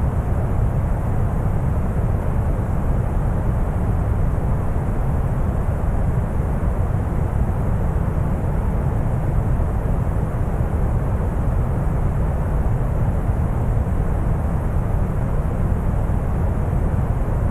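Deep brown noise: a steady, even rumbling hiss, strongest in the low end, with no changes or events.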